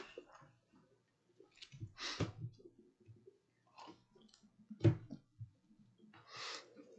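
Faint, scattered rustles and knocks of a person walking up to a wooden lectern with papers and taking hold of the microphone, with a sharp knock just before five seconds in as the loudest sound.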